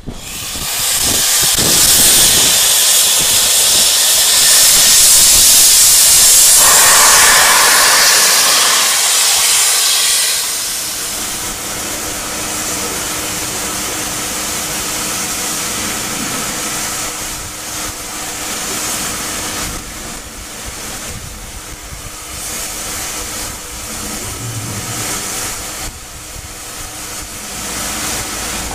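Steam locomotive 241-A-65, a French 241 A class 4-8-2, venting steam from around its cylinders in a loud, even hiss. After about ten seconds the hiss drops to a softer steady hiss that runs on.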